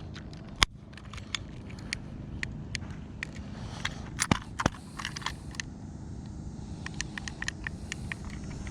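Scattered sharp clicks and small scrapes from handling a handheld digital fish scale, its battery contacts corroded so that it will not work. The loudest clicks come about half a second in and twice more past the middle.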